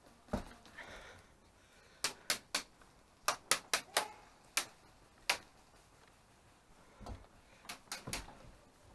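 Airsoft guns firing single shots: about a dozen sharp cracks in irregular groups, most of them between two and five seconds in, and a few more near the end.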